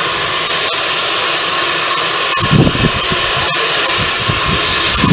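Narrow-gauge steam tank locomotive passing close at low speed, with a loud steady hiss of steam from its open cylinder drain cocks. Two low exhaust chuffs come about halfway through and near the end, and there are a few sharp clicks from the wheels.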